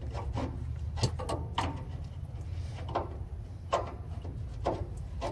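Metal wrench clicking and clinking against a brass fitting on a diesel tank's drain valve as it is worked loose, about seven sharp metallic clicks at uneven intervals over a low steady rumble.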